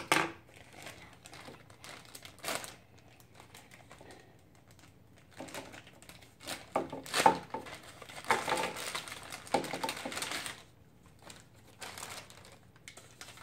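A few light clicks and knocks, then a thin plastic wrapper bag crinkling and rustling as it is opened by hand, densest for about five seconds in the middle.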